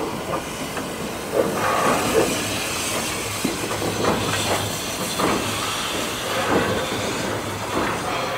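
Steam locomotive No. 207 moving slowly along the track, with a steady hiss of steam over the rumble and clatter of the wheels on the rails.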